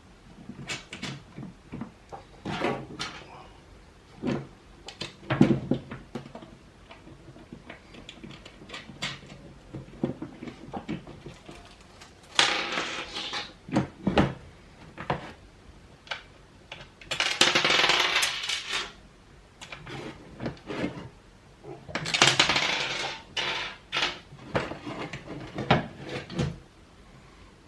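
Hands fitting the mounting bolts and nuts of a skateboard truck to the deck: scattered small metal clicks and knocks, with three longer scraping rattles of a second or so.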